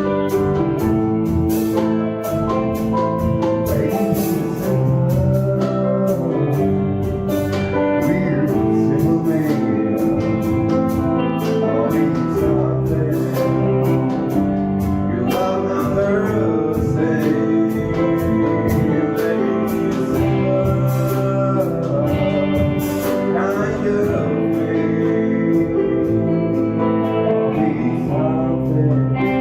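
A rock band playing a song: guitar chords and drums with a sung melody over them, and evenly spaced drum and cymbal strokes keeping the beat.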